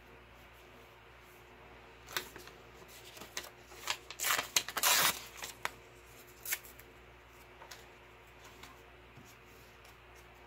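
Paper rustling and crinkling as sheets are handled on a tabletop: a flurry of short crackles starting about two seconds in and lasting about four seconds, loudest in the middle.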